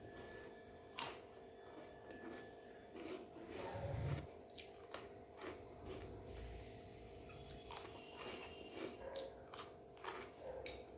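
A person chewing and biting food close to the microphone, with irregular sharp crunchy clicks and mouth noises.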